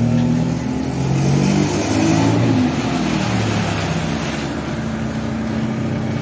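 A classic Mini with a swapped-in Honda D16 single-overhead-cam four-cylinder is driven past under throttle. The engine pitch climbs, drops about two and a half seconds in, then pulls again, with tyres hissing on the wet pavement.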